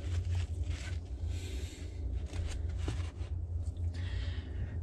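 Irregular rustling and handling noises with a few small clicks as gloved hands set a paper towel down in a beetle enclosure's dry bedding, over a steady low hum.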